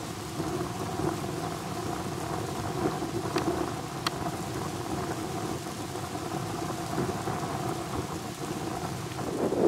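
Steady, rumbling rush of wind on the microphone at an open beach, with two faint clicks around three and four seconds in.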